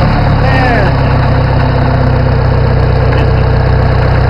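Farmall 450 tractor engine idling steadily with a knock in the motor, which the owner takes as a sign it needs a rebuild. A short falling squeal sounds about half a second in.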